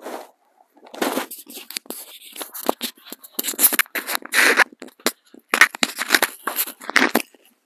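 A man whispering prayer in uneven breathy bursts with short pauses, no voiced tone.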